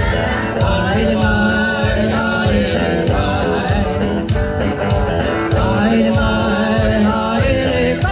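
Polynesian song performed for dancing: singing over a steady beat with held bass notes.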